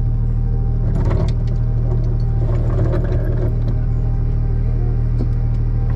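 Trawler's diesel engine idling steadily with a low hum, with a few brief clanks and rattles from the anchor gear on the bow about a second in and again near the middle.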